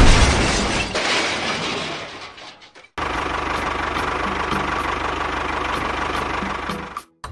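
A loud rushing clatter that fades away over about three seconds. Then, after a sudden cut, a small motor runs steadily with a fine rapid pulse and a thin whine.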